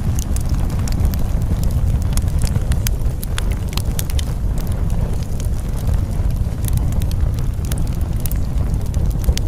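Crackling fire: a steady low rumble of flames with irregular sharp crackles and pops scattered throughout.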